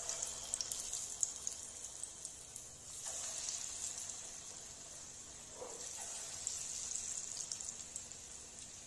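Onion and gram-flour pakoda batter deep-frying in hot oil in a kadai: a steady high sizzle with scattered crackles, growing louder about three seconds in.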